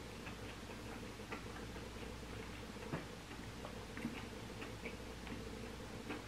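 Faint close-up chewing of a bite of stuffed zucchini: soft, irregular wet mouth clicks, one a little louder about three seconds in, over a steady low hum.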